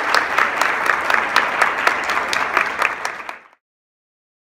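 Audience applauding, a dense patter of many hands clapping that fades and cuts off abruptly about three and a half seconds in.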